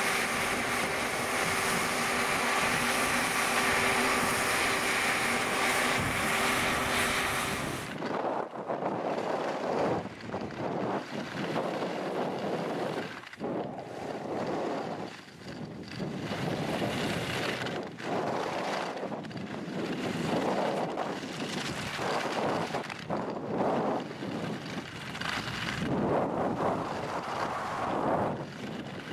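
Wind buffeting the microphone and skis scraping over packed snow during a fast descent of a steep groomed piste, the noise swelling and dipping every second or two with the turns. For the first eight seconds there is a steadier, even rush with a faint hum, which changes abruptly to the surging sound.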